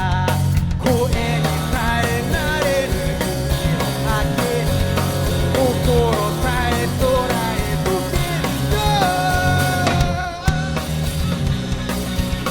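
Rock band playing live: drums and bass under a lead melody line that bends and slides in pitch. The low end drops out briefly about ten seconds in, then the band comes back in with a hit.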